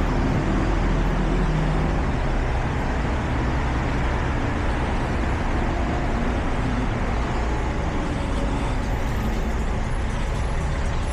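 City street traffic: a steady wash of road noise with a vehicle engine running close by, its low hum strongest in the first couple of seconds.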